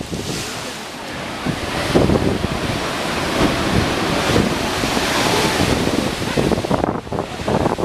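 Rough sea surf crashing and rushing, swelling about two seconds in and falling away sharply near the end, with wind buffeting the microphone.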